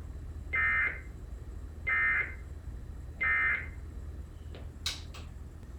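Emergency Alert System end-of-message (EOM) data burst sent three times, marking the end of the alert: three short, shrill two-tone digital squawks about 1.3 seconds apart. A low hum runs underneath, and a few clicks come near the end.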